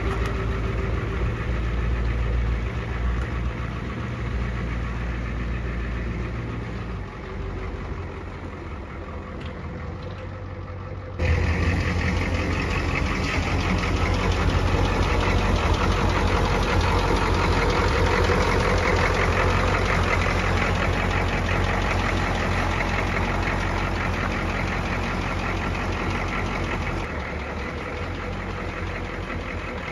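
A Ford 6.9-litre IDI diesel V8 running steadily at low speed in an old dump truck, warming up after being started. About eleven seconds in the sound steps up abruptly and becomes louder and fuller.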